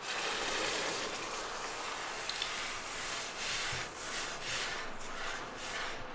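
Red-hot, clay-coated steel knife blade plunged into a bucket of water: a sudden hiss and sizzle as it goes in, swelling and easing several times as the blade is moved about in the water. This is the hardening quench, which leaves the blade hard steel.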